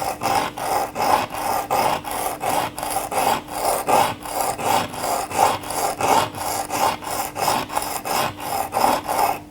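Steel dental luxator being stroked along a sharpening stone to restore its cutting tip: a quick, even rasping rhythm of about three strokes a second that stops abruptly at the end.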